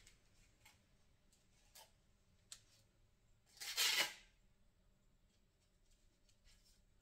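Faint handling of a 3000-grit sanding disc as it is fitted onto a cordless drill's backing pad: a few small clicks, then a louder, short scratchy sound about four seconds in as the disc is pressed onto the pad.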